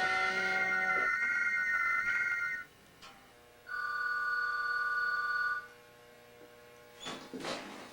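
Telephone ringing twice, about two seconds per ring with a short pause between: first a warbling two-tone ring, then a steadier one. Background music stops about a second in, and faint knocks and rustles follow the second ring, as the phone is about to be answered.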